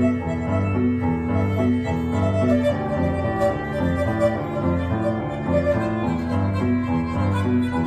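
Violin and upright piano playing music together live, the violin's bowed melody over steady, repeating piano notes.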